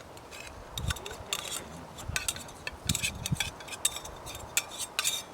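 Metal cooking utensils and cookware clinking and clattering irregularly, with a few duller knocks among the sharp ringing clinks.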